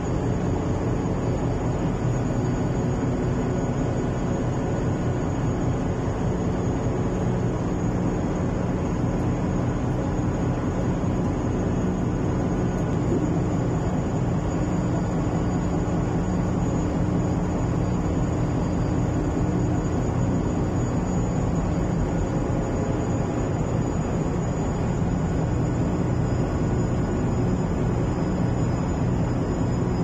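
Tug boat's engines and machinery running with a steady low drone, with a faint high whine above it.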